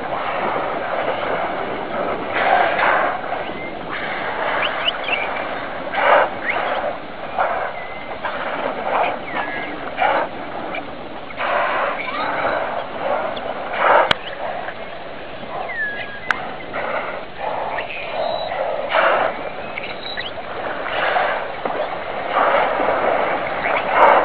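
Water splashing and lapping at the sea surface, with repeated louder splashes every second or two as a pod of dolphins surfaces close by. A few short high chirps sound now and then.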